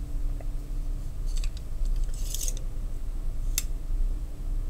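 A metal caliper and knife being handled: a few small clicks and a short scrape as the caliper is slid into place on the knife handle, with a sharp click about three and a half seconds in, over a steady low hum.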